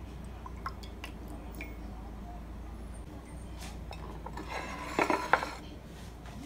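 A glass cup knocking and scraping on a tabletop as it is picked up, in a short cluster of clinks loudest about five seconds in, after a few faint clicks.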